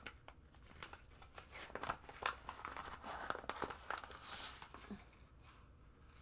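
A bag of trading-card packaging being torn and crinkled open: an irregular run of sharp crackles and rustles.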